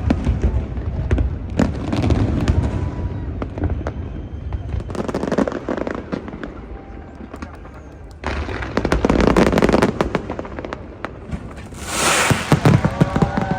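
Fireworks going off in a rapid series of bangs and booms, with a loud burst of crackling about twelve seconds in.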